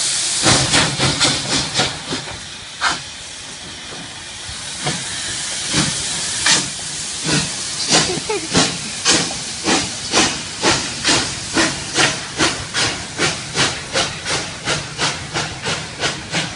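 Steam locomotive exhaust chuffing and hissing. A quick run of beats, then a couple of seconds of steady steam hiss, then the chuffs start again slowly and steadily speed up to about three a second as the engine gets under way.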